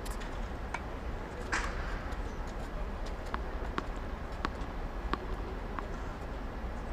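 Tennis balls being struck by rackets and bouncing on a hard court in a practice rally: a string of short sharp pops, roughly one every half second to second, over a steady low hum.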